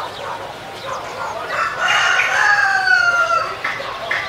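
A rooster crowing once, one long call that falls slightly in pitch, starting about one and a half seconds in and lasting about two seconds.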